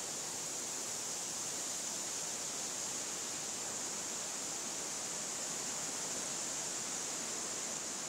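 Steady, even hiss, strongest high in the treble, with no distinct events.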